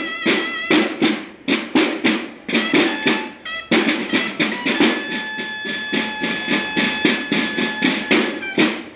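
Banda de guerra marching drums beating a fast rhythmic pattern of sharp strokes, with two brief breaks early on. Held bugle notes sound over the drumming from about halfway through.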